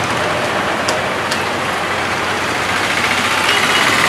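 Street traffic noise: motor vehicle engines running steadily, with two sharp clicks about a second in.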